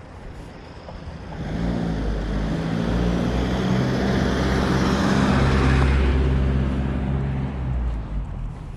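A motor vehicle passing close by: its engine and tyre noise swell over a couple of seconds, peak in the middle, then fade away.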